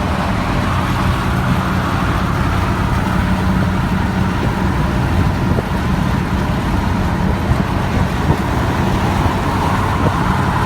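Setra 228 DT double-decker bus's Mercedes-Benz V8 turbo diesel running steadily at Autobahn cruising speed, its low engine note joined by a steady higher whistle from the turbocharger.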